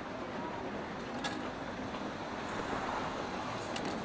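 Café ambience with rain: a steady wash of rain and street noise under faint background murmur, broken by a sharp click about a second in and a couple more near the end.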